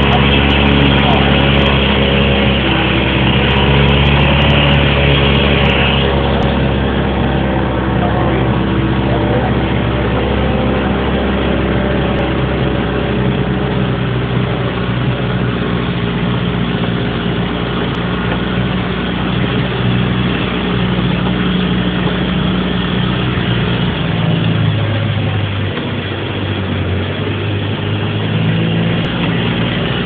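Jeep engine running steadily at low speed while the vehicle drives across a grass field. About three-quarters of the way through, the engine note shifts in pitch.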